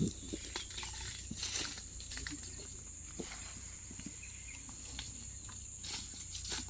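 Steady high-pitched drone of insects, with scattered faint clicks and rustles over a low hum.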